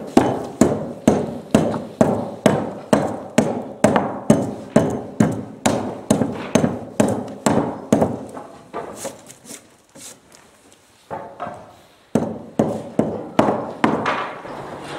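Curved-handled Japanese adze (chōna) chopping into a wooden boat's bottom planks in a steady rhythm of about two blows a second, shaving flush the wooden plugs set into the boards to flatten the floor. The blows grow lighter and stop for a moment about ten seconds in, then resume.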